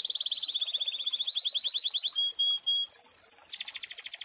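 Canary singing: a chain of fast trills of high repeated notes, each trill running a second or so before switching to a new one, with a few short separate notes about two seconds in.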